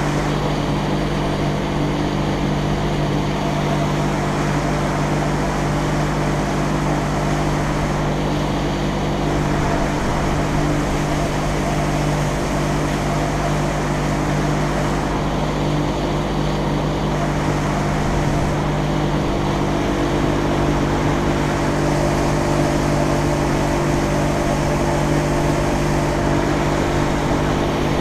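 Outboard motor on a small boat running steadily at cruising speed, an even drone that holds the same pitch throughout.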